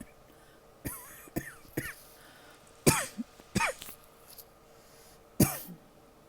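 A person coughing in short bouts, about six coughs in all: three in quick succession about a second in, two more around three seconds, and a last one near five and a half seconds, several ending in a falling, squeaky pitch. It is a tight-chested cough that the person puts down to seasonal fall allergies rather than illness.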